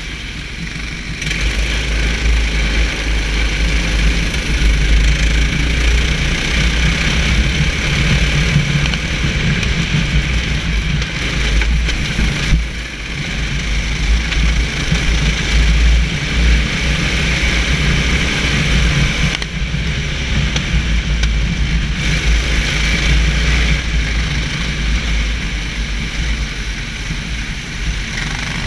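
Racing kart engine running hard at speed, heard onboard, with heavy low rumble from wind buffeting the camera microphone.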